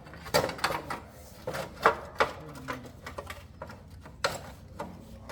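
Irregular clicks and clinks of small metal parts and hand tools being handled, a dozen or so sharp knocks at uneven spacing.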